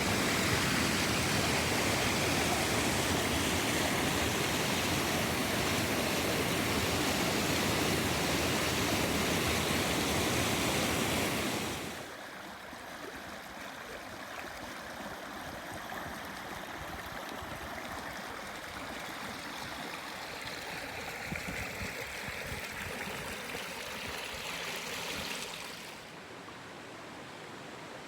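River water flowing: a steady rush that drops abruptly to a quieter flow about twelve seconds in, and drops again slightly near the end.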